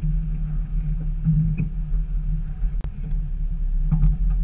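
Jeep Wrangler TJ's engine running at low revs as it crawls slowly over a rocky trail, a steady low drone heard close through a hood-mounted camera, with a sharp click a little under three seconds in.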